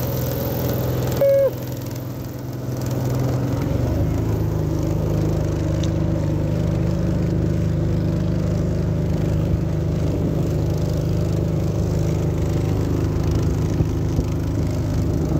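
Small engine of a wooden motorboat running steadily under way. A short loud tone sounds about a second in; the engine dips briefly, then picks up and settles to a steady note from about four seconds in.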